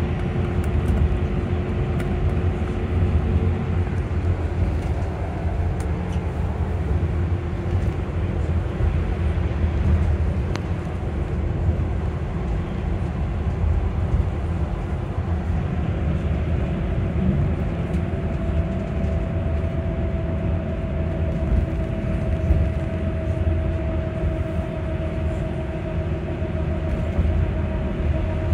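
Electric bus cruising, heard from inside the passenger cabin: a steady low rumble of the running bus with the electric drive motor's steady whine on top. About 17 seconds in, a higher whine comes in and holds.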